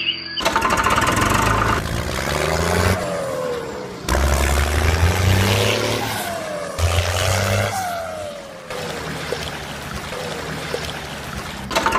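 Vehicle engine sound effects, edited in as several clips that start and stop abruptly, with a low rumble and a few falling pitch sweeps, mixed with a rushing noise like pouring gravel.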